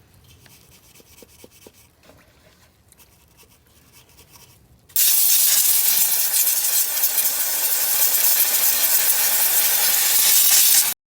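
Faint clicks of handling, then about five seconds in a loud, steady spraying hiss starts suddenly and cuts off abruptly near the end: a spray aimed at the car's air-conditioning evaporator as it is cleaned.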